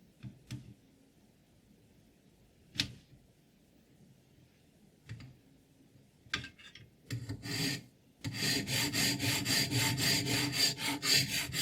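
A few scattered clicks and knocks of handling, then, about eight seconds in, a sharpening stone starts grinding a scissor blade in fast, even back-and-forth strokes, about three to four a second.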